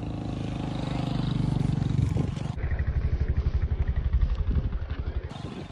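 A motor engine running with a steady low hum that grows louder, turning into a fast pulsing rumble about halfway through.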